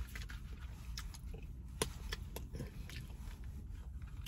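A person chewing and biting into potato wedges close to the microphone: faint scattered mouth clicks and smacks, one sharper click about two seconds in, over a low steady hum.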